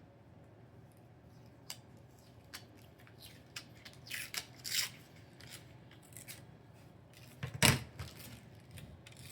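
Protective paper being picked at and peeled off an acrylic panel: scattered fingernail scratches and short papery rips, with a sharp knock about three quarters of the way through.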